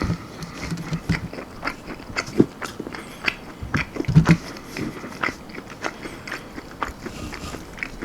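Close-miked chewing and biting on crunchy almond-flour-breaded chicken wings: irregular crisp crunches and mouth sounds.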